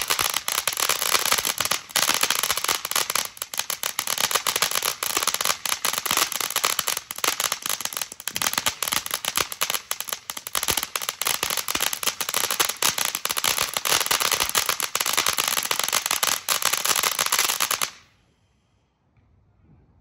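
Consumer ground fountain firework spraying: a steady loud hiss dense with crackles, which cuts off abruptly about eighteen seconds in.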